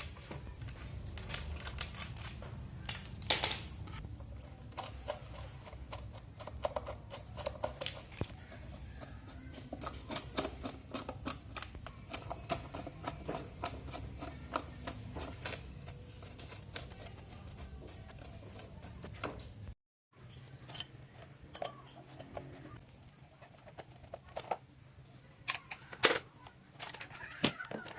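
Irregular clicks and light taps of hard objects being handled, with a few louder knocks, over a low steady hum. Both stop abruptly about twenty seconds in, and sparser clicks follow over a quieter background.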